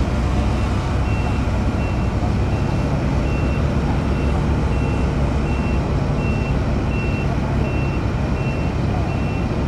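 Heavy construction machine's backup alarm beeping in a steady rhythm, a little under two beeps a second, over its engine running steadily. The alarm is the sign that the machine is reversing.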